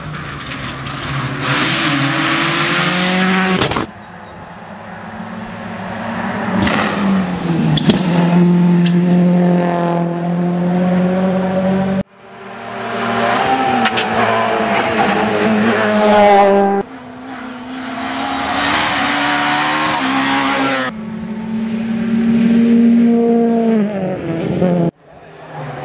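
A string of rally cars passing at speed, one after another, each engine revving hard through gear changes with the pitch climbing and dropping. Each pass breaks off abruptly and the next begins.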